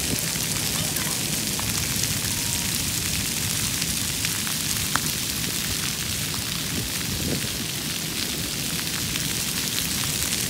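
Splash pad ground jets spraying, with water pattering down on the wet pavement: a steady hiss with small ticks of drops.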